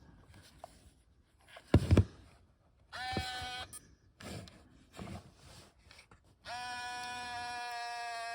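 Pentax IQZoom 130M 35mm camera's motor whirring, most likely the zoom lens being driven. A short run comes about three seconds in, and a longer steady run starts about six and a half seconds in, after a couple of clicks from handling the camera.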